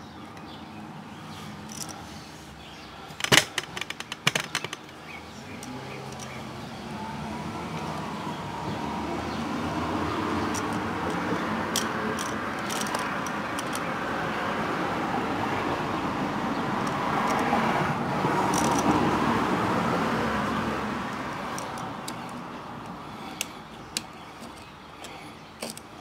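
A passing road vehicle's noise swells slowly, peaks about two-thirds of the way through and fades away. Sharp clicks and rattles from a wall outlet and its wires being handled and pushed into a metal electrical box come a few seconds in and are the loudest sounds.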